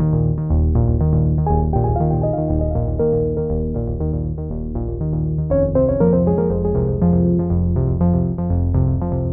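Background music: synthesizer and keyboard notes over a steady bass pulse, with a change of chord about halfway through.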